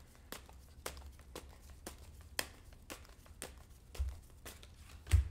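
A deck of tarot cards shuffled by hand: a string of soft card clicks and flicks, with two dull thumps on the wooden desk near the end.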